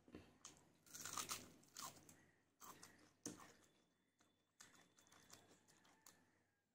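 Faint close-up eating sounds: raw onion crunching as it is bitten and chewed with a mouthful of rice. The crisp crunches come in the first three seconds or so, then give way to softer, sparser chewing.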